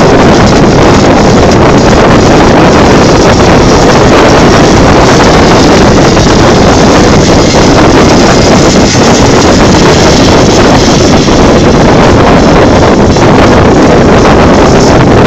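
Boat under way: its engine running steadily, mixed with heavy wind noise on the microphone. The sound is loud and unbroken.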